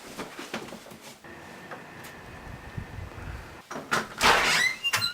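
A door being opened, with a steady faint hiss and then loud clattering and thuds about four seconds in.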